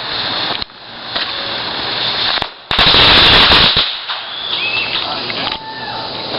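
Firecrackers going off in a rapid burst of loud cracks lasting about a second, starting a little under three seconds in.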